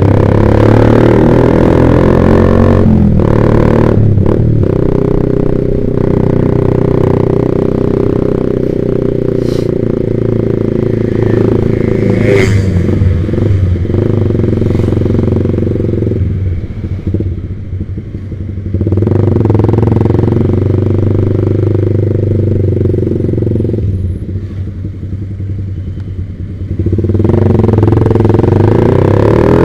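Yamaha Vixion's single-cylinder engine, breathing through a Proliner TR1 R aftermarket exhaust, running steadily under way. Twice, about 16 s and about 24 s in, it drops quieter for a few seconds as the throttle is eased off, then picks back up.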